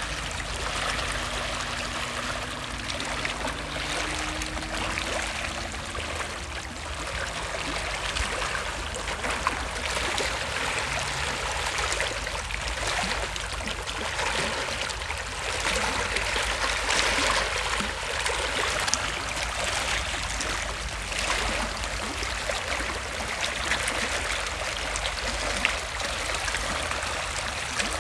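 Shallow sea water lapping and trickling over rough reef rock at the shoreline, a steady wash that swells and ebbs.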